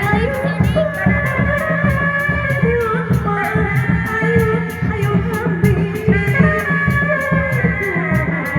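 Live jaranan (kuda lumping) music: a wavering, held melody over steady drumming, with a fast, even ticking beat about four times a second.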